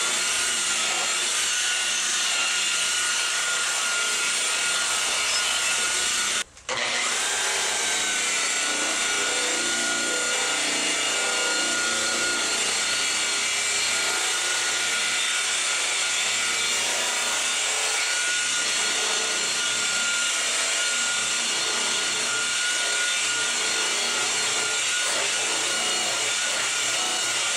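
DeWalt rotary polisher running steadily with a foam pad pressed on car paint, a steady motor whine over the pad's rubbing. The sound drops out for a moment about six seconds in.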